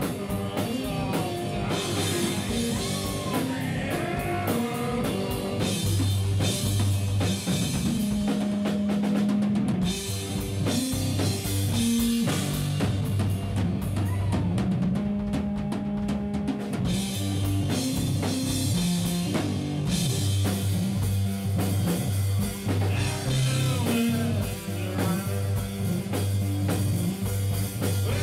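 Rock band playing an instrumental passage without singing: the drum kit is to the fore, over held bass notes.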